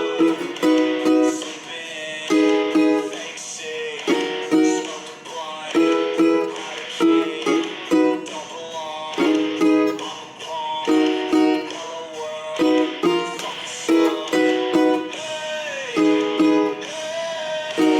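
Ukulele strumming chords in a steady rhythm, the song's progression of G, Em, Bm and C.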